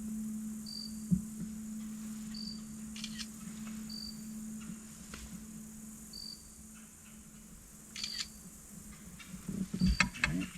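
An insect chirps a short high note about every second and a half to two seconds, over a steady low hum. A few light rattles come partway through, and knocks near the end.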